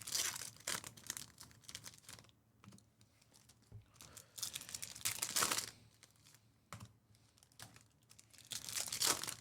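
Trading card pack wrappers crinkling and tearing in several bursts as packs are handled and ripped open, with quiet gaps between.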